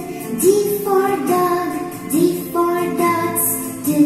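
Children's phonics song: a female voice sings a bright melody over light instrumental backing with a steady beat.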